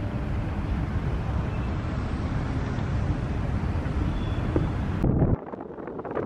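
Wind buffeting the microphone outdoors: a steady, rough low rumble that drops suddenly to a quieter hiss about five seconds in.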